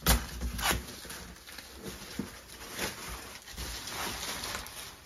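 Plastic protective sheeting over a new bathtub rustling and crinkling as it is pulled back, in several separate swishes.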